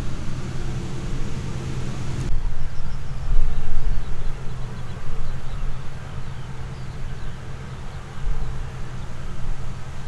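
Combine harvesters running while cutting barley: a steady low engine and threshing hum. The sound changes abruptly about two seconds in.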